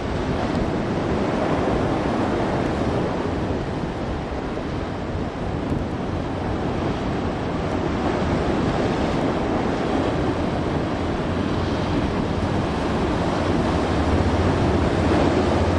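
Ocean waves surging and breaking, with wind buffeting the microphone. Near the end a low, steady boat engine drone comes in and grows louder.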